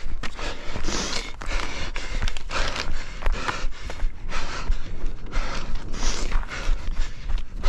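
A runner panting hard close to a head-mounted microphone, about one and a half to two breaths a second, with footfalls underneath.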